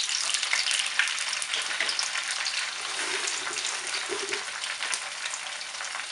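Two eggs frying in hot oil with garlic in a wok: a steady sizzle with fine crackling pops, easing off slightly toward the end.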